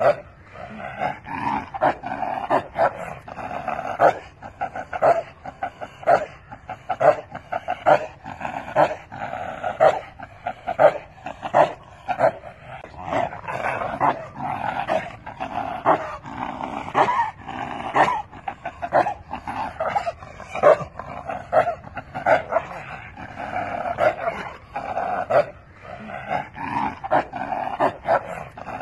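A chained dog barking over and over in short, sharp barks, about one or two a second, without a break.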